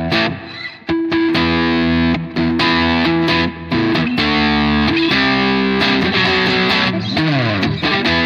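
Epiphone Prophecy SG electric guitar on its neck pickup in full humbucker mode, played with overdrive. Chords are strummed and left to ring, with a sliding change of pitch near the end.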